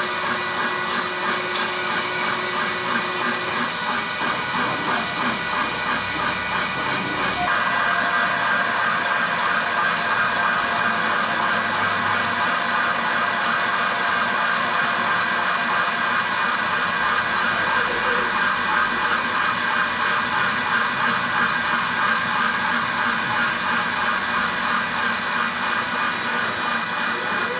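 Metal lathe running steadily while boring out a worn water-pump bearing housing to enlarge it, with a steady hiss and whine from the machine and cut; it grows a little louder about seven seconds in.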